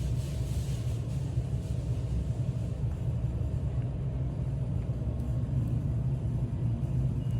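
Steady low road rumble heard inside a moving car's cabin, with a brief hiss that fades out about a second in.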